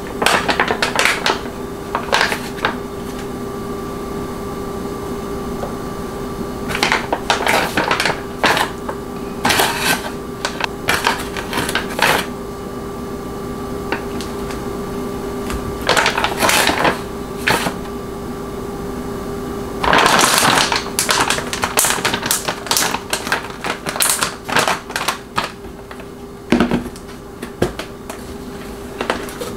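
A crinkly plastic bag of frozen blackberries being rummaged and berries dropped into a small wooden bowl: bursts of plastic crinkling and light clicks and knocks, coming in clusters with pauses between, over a steady low hum. Near the end, a plastic food container is handled with a dull knock.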